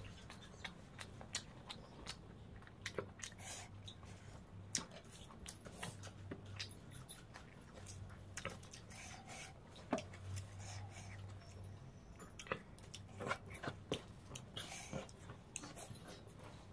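Close-miked eating: wet chewing and lip-smacking of crab curry and rice, with soft squishing as the curry-soaked rice is mixed by hand. Irregular small clicks and smacks over a faint low hum.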